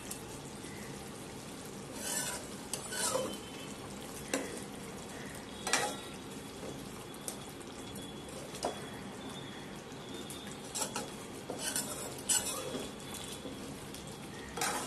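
A metal spoon stirring thick aubergine curry in a metal kadhai, with irregular scrapes and clinks against the pan, over a low steady sizzle from the pan just taken off the flame.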